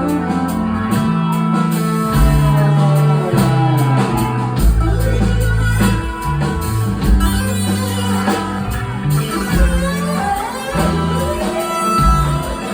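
Live rock band playing an instrumental passage, with guitars over a bass line that changes note every second or so.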